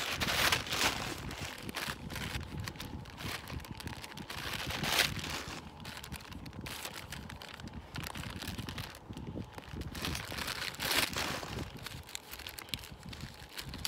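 Clear plastic bag crinkling and rustling in gloved hands, in irregular bursts that are loudest about half a second, five seconds and eleven seconds in.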